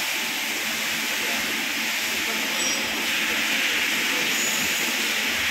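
Large custom press station running on a 5.5 kW servo motor through its gearbox, with the platen moving slowly: a steady, even mechanical noise that grows a little louder about three seconds in. The machine is built for an 18 kW servo motor, so on this smaller test motor it runs slowly.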